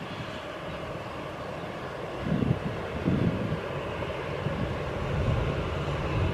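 Distant twin-engine jet airliner's engines running with a steady rushing hum and faint whine as it rolls along the runway. Low rumbling swells come in from about two seconds in, and a motorcycle passes close near the end, where it gets louder.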